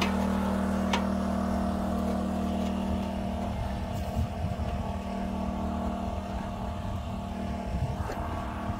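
Small generator's engine running steadily with a constant hum, with a few light knocks.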